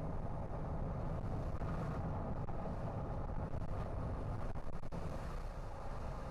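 Car driving along, with a steady low rumble of road and tyre noise. A few faint clicks come about four and a half seconds in.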